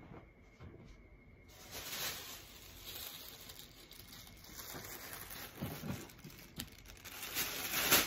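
Thin plastic shopping bag rustling and crinkling as it is handled, with soft movement noises, louder near the end.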